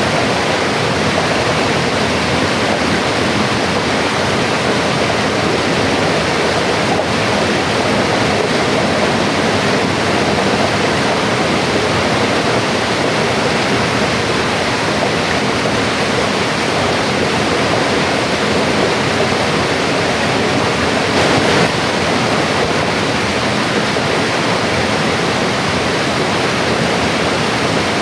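Mountain river rushing steadily over rocks, a dense even wash of flowing water.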